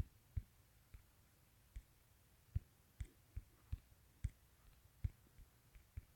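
Faint, irregular fingertip taps on a smartphone's touchscreen while typing on the on-screen keyboard, about a dozen in six seconds.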